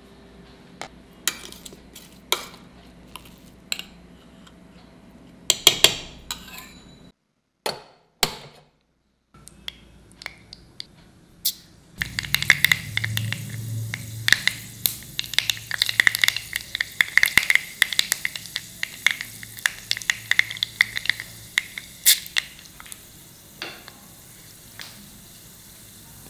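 Mustard seeds spluttering in hot oil in a stone kadai for tempering: a dense, loud run of crackling pops that starts about halfway through and thins out near the end. Before it there are only a few scattered clicks and taps.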